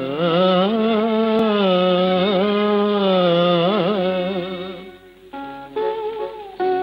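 Recorded Carnatic-style film-song music: one long held melodic line bending up and down in pitch, fading out about four and a half seconds in, then separate plucked-string notes.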